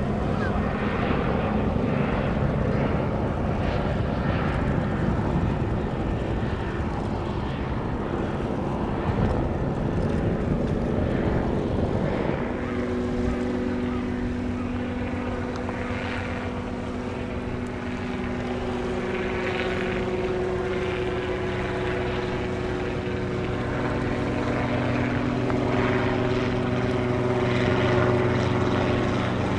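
Steady engine drone. For about the first twelve seconds it is mostly a rushing noise; after that it settles into a steady hum of several held tones.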